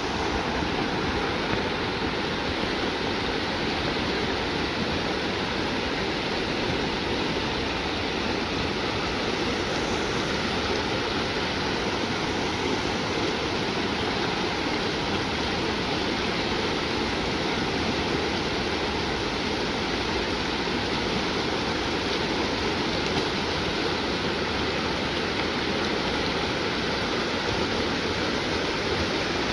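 Shallow river running fast over rocks and through small rapids: a steady, even rush and babble of water.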